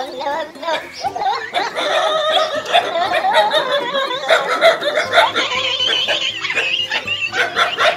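Laughter.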